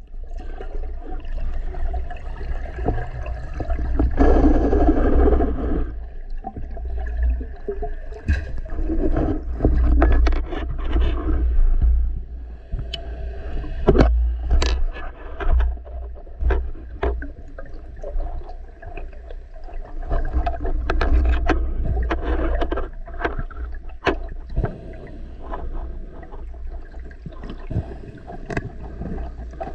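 Underwater sound picked up by a diver's camera: a steady low rumble and rushing water movement, broken by many sharp clicks and knocks, while a speared common carp is handled on the shooting line.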